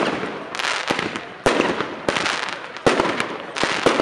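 Fireworks display: aerial shells bursting with sharp bangs roughly once a second, with a continuous noisy hiss between the bangs.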